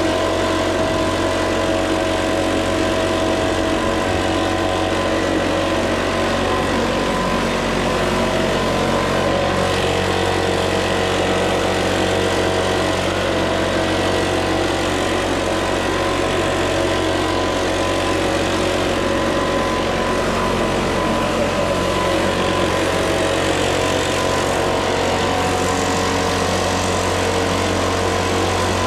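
Backpack leaf blower's engine running steadily at constant throttle, blowing debris off a lawn, with an even, unchanging pitch.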